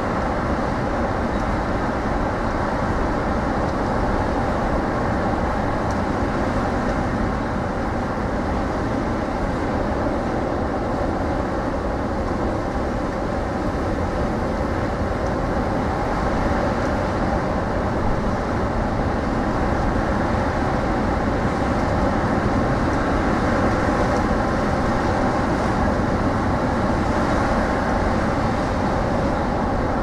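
Rough storm surf breaking and washing in continuously on the beach, a steady loud rush of waves with a constant low rumble of wind on the microphone.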